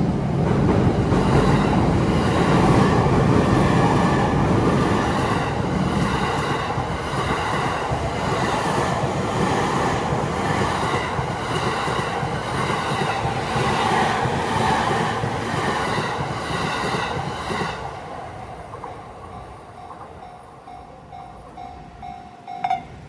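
Joban Line electric train passing over a level crossing: a loud rumble of wheels on rail that fades out after about eighteen seconds as the train moves away. A short, sharp sound comes near the end.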